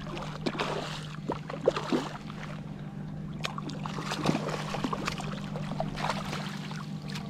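Shallow water splashing and sloshing in short, irregular bursts as a wading angler brings in a hooked redfish, over a steady low hum.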